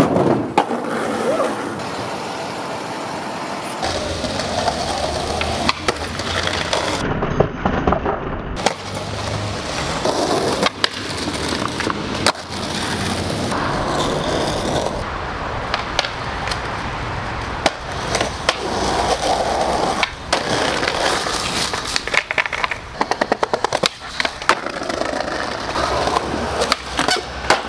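Skateboards rolling over street pavement and concrete, with sharp cracks of the board hitting and landing again and again as the skaters do tricks. The sound changes abruptly several times between clips.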